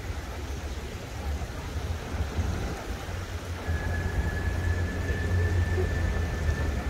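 Steady outdoor ambience: a low rumble with an even rushing hiss, joined about halfway through by a thin, steady high tone.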